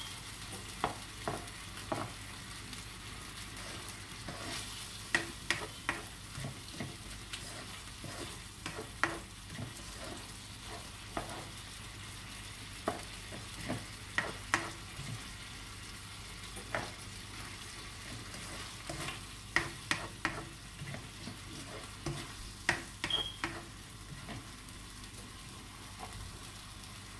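Buro (fermented fish with rice), tomatoes and onions frying in a wok with a steady sizzle, while a spatula scrapes and taps against the pan at irregular moments as the mixture is stirred.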